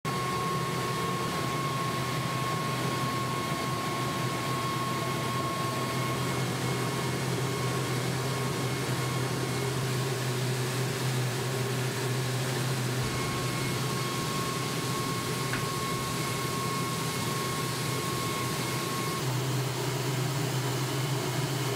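Steady machine hum with a thin high whine running over it, like a motor or fans running. The hum shifts slightly about two-thirds of the way through and again near the end.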